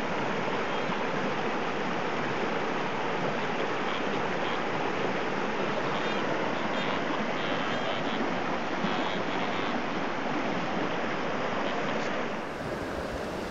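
Steady rush of a mountain creek's running water, even and unbroken, dropping a little in level near the end.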